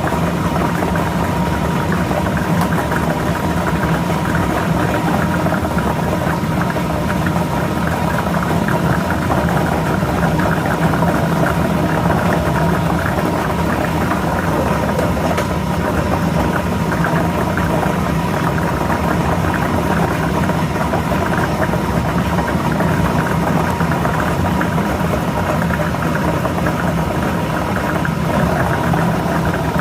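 Lotto ball drawing machine running: a steady motor and blower hum, with the balls clattering continuously as they are mixed.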